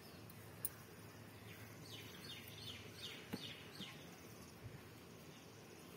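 Faint background bird chirping: a quick run of about eight short, falling chirps in the middle, over low steady outdoor noise, with a couple of faint clicks.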